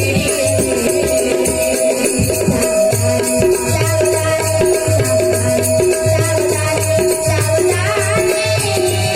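Devotional bhajan music: a harmonium holds a steady note over fast, dense rattling percussion, with deep low beats coming and going throughout.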